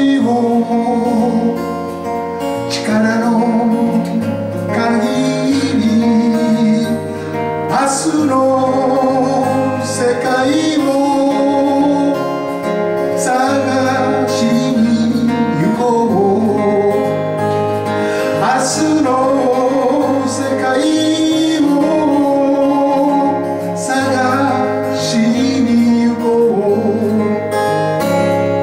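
A man singing a Japanese folk song while strumming an acoustic guitar.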